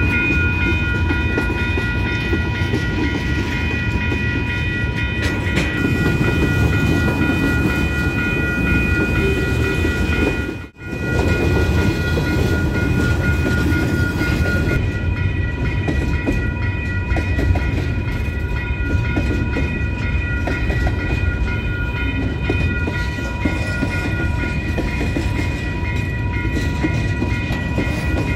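Canadian Pacific freight cars rolling past a level crossing: a steady rumble and clatter of steel wheels on the rails, with the crossing bell ringing over it. The sound drops out for an instant about eleven seconds in.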